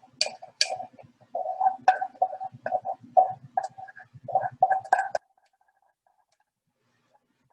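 Kitchen utensil scraping the last of a lemon custard out of a saucepan: about a dozen quick scrapes and taps over five seconds, each carrying a short ringing note from the pan, then they stop.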